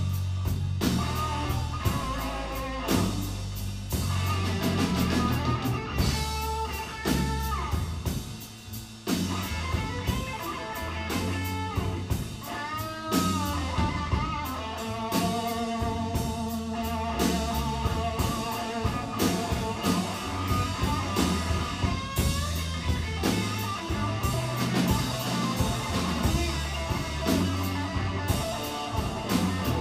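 Blues trio playing live: a lead electric guitar with bent, held notes over a bass guitar and a drum kit, without vocals.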